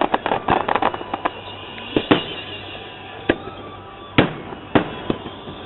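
Fireworks display: a rapid run of crackling pops in the first second or so, then single sharp bangs about every half second to second.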